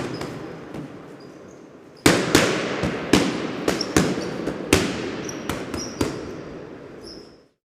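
A series of sharp explosive bangs, about a dozen at irregular intervals about half a second apart, over a hiss that starts suddenly and fades out near the end, with faint high whistles between the bangs.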